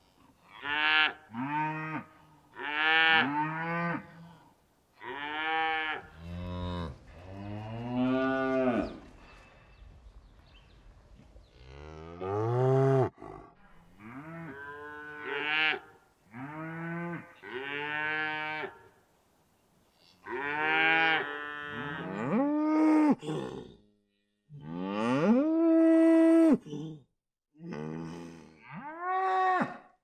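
Cows mooing: a series of about a dozen separate moos, most rising and then falling in pitch, some short and some drawn out, with a long, steady-pitched moo near the end.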